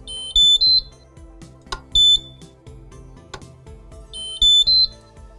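Häfele Free Swing E electric lift-up drive beeping as its programming button is held: a rising run of three short electronic tones, a single tone about two seconds later, and the same rising run again near the end, the unit's signals for entering the programming menu and confirming a menu item. Soft background music plays underneath.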